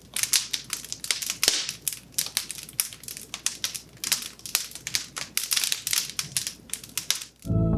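Wood fire burning in a fireplace, crackling with a dense, irregular run of sharp snaps and pops. Music comes in just before the end.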